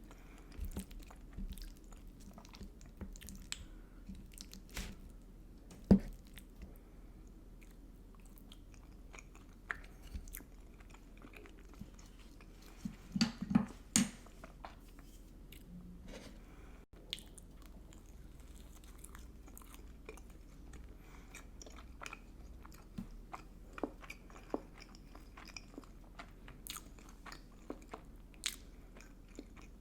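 Close-miked eating: chewing and biting with small crunches and wet mouth clicks. A few louder sharp crunches or clicks stand out, the loudest about six seconds in and a short cluster around thirteen to fourteen seconds.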